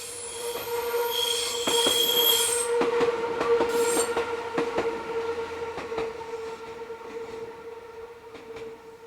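Train wheels squealing on a tight curve: a steady high squeal with a shriller tone joining for about a second near the start, mixed with clicking from the wheels over rail joints. It is loudest a few seconds in and fades as the train moves away.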